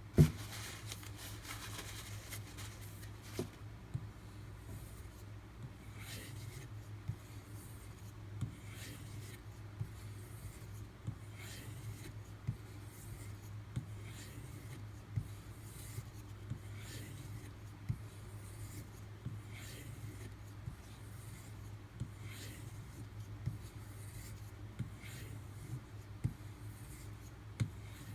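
A D2 steel knife blade being drawn in repeated strokes across a bovine leather strop loaded with 0.5 micron diamond paste. There is a soft rubbing swish on each pass and a light tap about every second and a quarter as the blade is set down, over a steady low hum.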